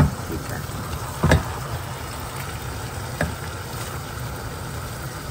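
Chicken pieces frying in butter and oil in a pan, a steady sizzle over a constant low hum, with two sharp knocks of a utensil on the pan about one and three seconds in.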